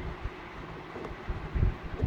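Soft low bumps and knocks from hands handling and opening a small plastic speaker casing, over a steady background hiss. The strongest knocks come about one and a half seconds in.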